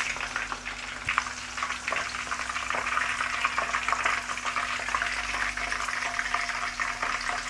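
Hot oil sizzling and crackling steadily around a whole chicken deep-frying in a pan.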